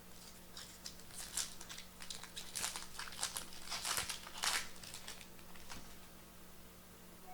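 Foil wrapper of a Bowman Chrome baseball card pack crinkling in the hands as it is opened. It comes as a series of irregular crackles that build up and die away about five seconds in.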